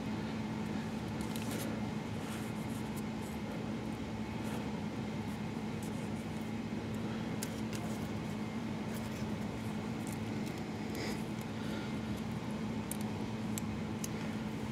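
A steady mechanical hum in the background, with a few faint light clicks of a wheel-hub nut and cotter pin being handled.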